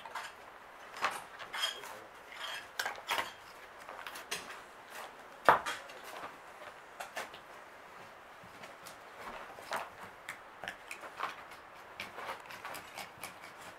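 Hand trowels scraping and scooping loose soil and clinking against stones and buckets: irregular short scrapes and knocks, with one sharp, louder knock about five and a half seconds in.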